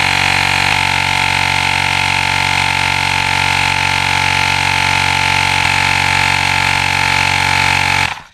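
Airmoto Smart Air Pump, a cordless tire inflator, running steadily with a loud, even hum as it pumps up a motorcycle's rear tire, then cutting off suddenly about eight seconds in as the tire reaches the set 34 psi.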